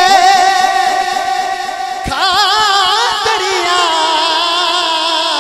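Devotional naat music: a long held sung note with a wavering pitch over a quick, steady beat. A second held note slides in about two seconds in.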